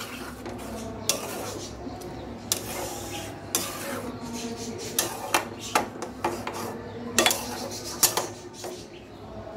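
A metal spoon stirring and scraping a thick egg curry in a metal pot, with irregular clinks as the spoon knocks against the pot's sides.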